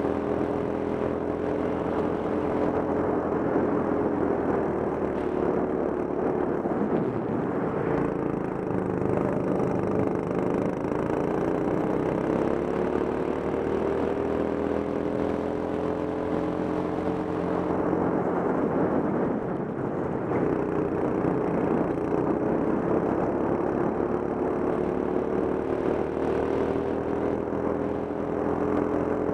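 Go-kart engine running at speed, heard from on board: its pitch drops twice as the kart slows for corners and climbs again as it accelerates out.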